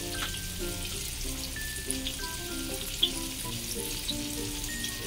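Flour-coated chicken wings frying in shallow oil in a wok over low heat: a soft, even sizzle with small crackles. Background music with a melody of held notes plays over it.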